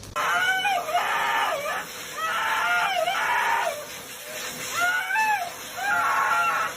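An animal screaming: four loud, drawn-out calls in a row, each wavering up and down in pitch with a raspy edge.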